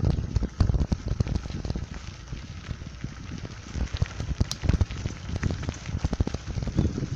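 Riding noise on a bicycle over a gravel road: wind buffeting the microphone, with the tyres crunching and the bike rattling over gravel in a dense run of irregular pops and thumps.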